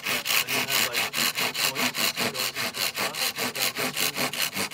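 Hand saw cutting into green poplar pole wood with quick, even strokes, about eight a second, that stop near the end. The cut is made at a dowel-hinged door frame where the dowel is binding too tightly to turn.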